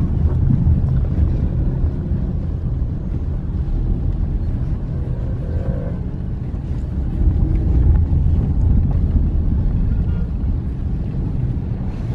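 Car driving through city streets: a steady low rumble of engine and road noise.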